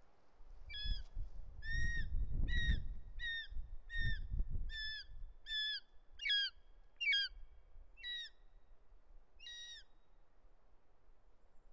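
Juvenile short-toed snake eagle screaming from the nest: a run of about eleven short, high, clear notes, each ending in a downward flick, coming less than a second apart, then spacing out and stopping near the end. These are the young eagle's begging calls for food. A low rumble sits underneath in the first half.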